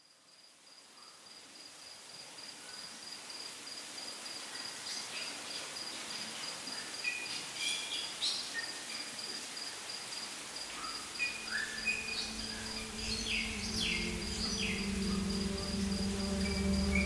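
Woodland ambience fading in: an insect trilling on one steady high note, joined by scattered short bird chirps from about five seconds in. A low, steady musical drone swells in over the second half.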